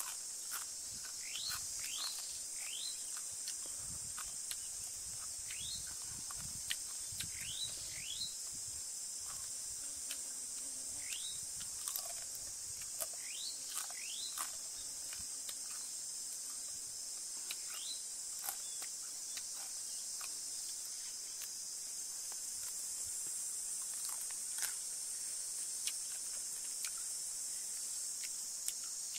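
Steady high-pitched drone of insects in dry forest, with a string of short chirps that fall in pitch, mostly in the first half, and a few sharp clicks.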